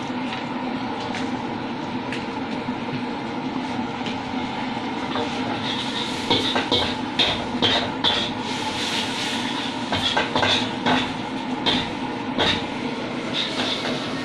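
Mie goreng being stir-fried in a wok: a steady rushing noise runs throughout, and from about six seconds in a metal spatula repeatedly clinks and scrapes against the wok.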